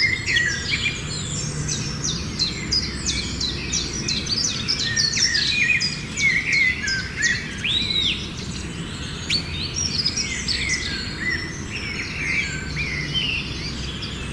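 Many birds chirping and calling at once: a busy chorus of short, overlapping high chirps and quick whistles that never lets up.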